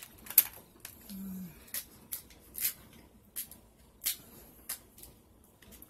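Sharp clicks and cracks of king crab leg shell being snipped with small scissors and picked apart by hand, about one every half second to second. A short hummed "mm" about a second in.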